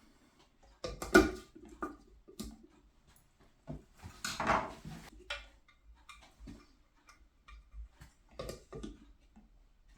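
Irregular clicks, taps and knocks of tools and small parts being handled during boiler repair work, with a sharp clatter about a second in, a longer scraping rustle around the middle, and two more knocks near the end.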